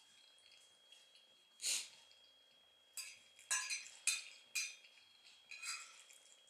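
Close-miked eating: one breath through the nose about a second and a half in, then a run of short clicks and scrapes of a metal fork against a plate as food is scooped up, from about three seconds to six seconds in.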